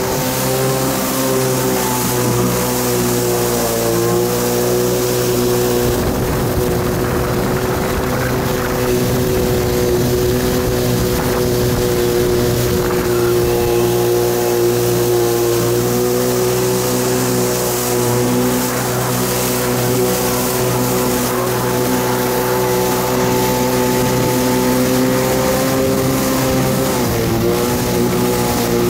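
1993 Kawasaki 650SX stand-up jet ski's two-stroke twin engine running at a steady cruising speed over a steady rushing noise. The engine note dips briefly about four seconds in and again near the end.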